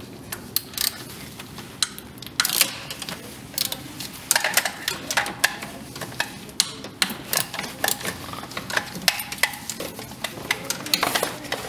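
Socket ratchet clicking in short runs of quick clicks as it works a 12 mm socket on an extension, loosening a distributor mounting bolt.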